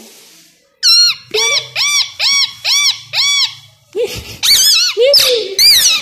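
Male plum-headed parakeet calling: a run of about six short, arched, high-pitched calls at an even pace of roughly two a second, then a few longer, wavering calls near the end.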